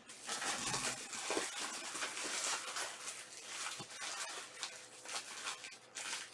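Irregular rustling and crinkling of plastic wrapping and cardboard card-box packaging being handled and opened, with scattered small clicks.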